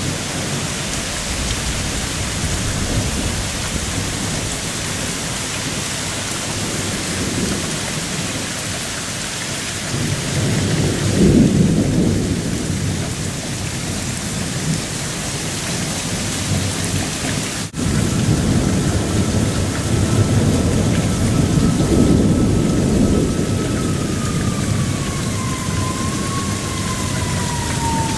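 Heavy thunderstorm rain pouring down in a steady hiss, with rolling thunder rumbling in two spells, about ten seconds in and again from about eighteen seconds. After a brief break in the sound, a faint steady tone sounds and slowly falls in pitch near the end.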